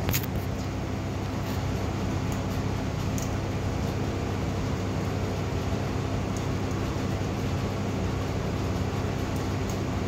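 Steady machine hum and hiss, like a running appliance motor, with a few faint short clicks on top, the clearest right at the start.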